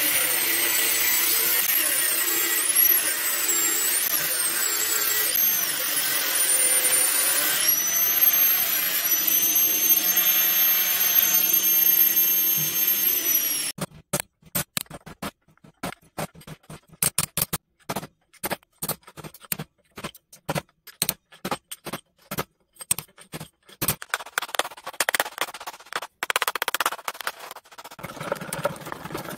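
Angle grinder cutting through the copper winding ends of an electric motor's stator, its motor whine shifting in pitch as the load changes. It stops about fourteen seconds in, and a string of sharp, irregular knocks follows.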